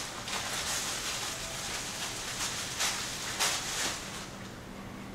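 Soft rustling and a few light handling clicks as items are picked up and moved on a kitchen counter, over a faint steady room hiss.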